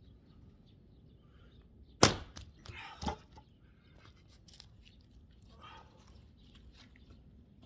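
An axe strikes a log once, sharply, about two seconds in, followed by a lighter wooden knock about a second later as the wood is split for firewood.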